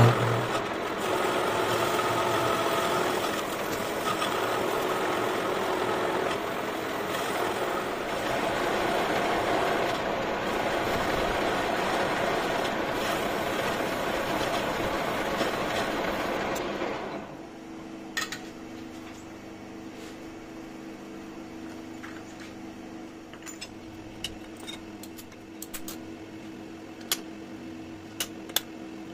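Metal lathe turning a steel gear blank, the cutting tool taking a continuous cut with a steady dense machine noise. About 17 seconds in the noise cuts off abruptly, leaving a faint steady hum and scattered sharp metal clicks and knocks as tools and fittings are handled on the lathe carriage.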